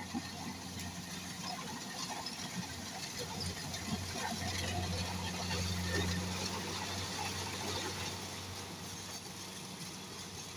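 Engine of a farm machine running steadily with a low hum, growing somewhat louder in the middle and easing off again.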